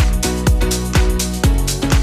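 Electronic dance background music with a steady four-on-the-floor kick drum, about two and a half beats a second.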